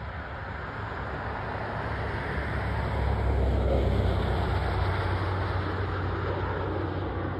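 Turboprop aircraft climbing out after takeoff: a steady engine and propeller rumble that swells to its loudest about halfway through, then eases slightly.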